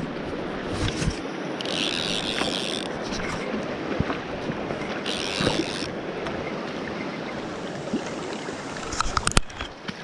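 Mountain stream rushing steadily, with rubbing and knocks from the body-worn camera being jostled while a hooked trout is played. Two short high-pitched buzzes come about two and five seconds in, and a few sharp clicks near the end.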